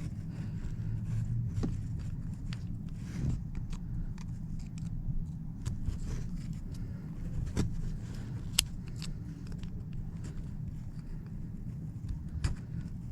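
Scattered light clicks and taps from hand work on the car's third brake light and its trim, over a steady low rumble.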